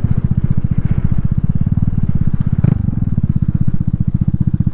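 Vespa Sprint 150 scooter's single-cylinder four-stroke engine running steadily at low revs, an even rapid chugging, with one short knock a little past halfway.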